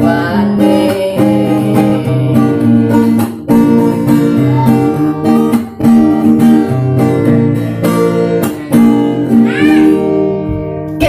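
Nylon-string classical guitar strummed and picked in a steady rhythm, with a man's voice singing in places.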